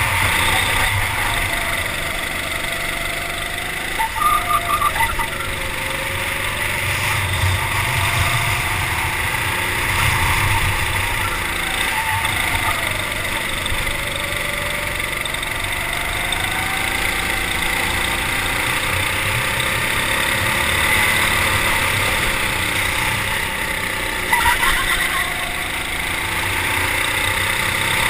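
Racing kart engine heard from a camera mounted on the kart, its pitch rising and falling with the throttle through corners and straights. Twice, about four seconds in and near the end, a brief pulsing rattle cuts in over it.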